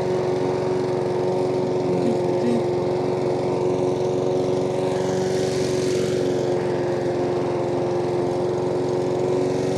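Gas walk-behind push mower's small engine running at a steady speed while the mower cuts grass.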